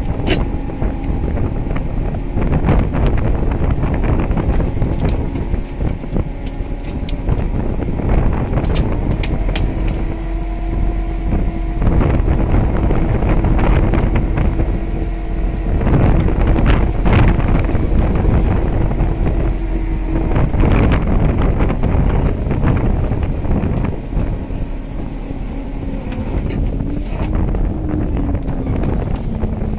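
Fishing boat's engine running steadily at sea, with wind buffeting the microphone. A steady hum holds through the middle and wavers in pitch near the end.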